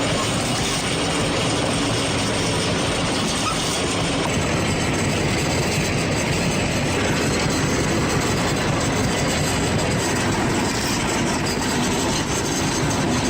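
Wood chipper running and shredding wood: a loud, steady mechanical din without a break.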